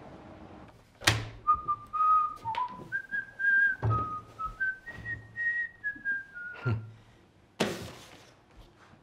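A man whistling a short tune through pursed lips, in clear single notes that step up and down. A few dull thuds fall between the phrases, and there is a short noisy burst near the end.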